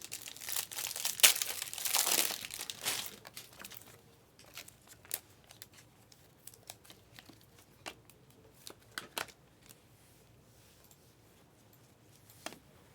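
Foil wrapper of a basketball trading-card pack being torn open and crinkled for the first few seconds, then scattered light clicks and taps as the cards are handled.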